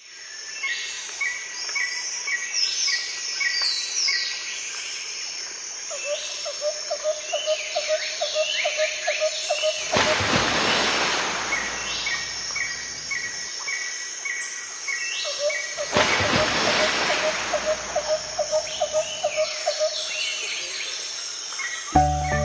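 Several birds calling and singing together: quick falling chirps, a run of short high notes, and twice a lower run of rapid repeated notes. Two spells of rushing noise rise over the birdsong near the middle.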